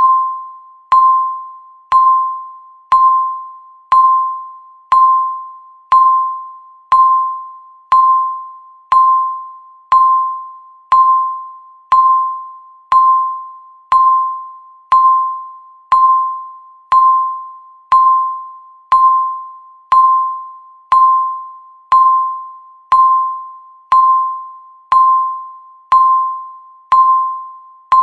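Countdown timer beep: one electronic tone struck once a second, each beep starting sharply and fading away before the next, a steady ticking count.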